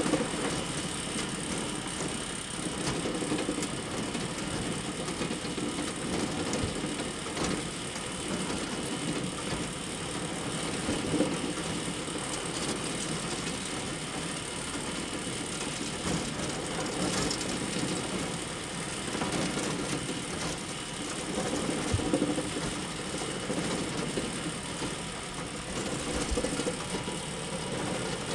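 A hay bale elevator running steadily: a continuous mechanical clatter and rattle, with a few louder knocks along the way.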